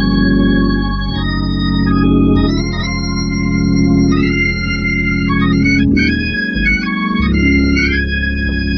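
Two-manual church organ playing sustained chords with busy runs and fills over the top, bass notes dropping out briefly near the end. It is the kind of playing behind a singing choir that is too much.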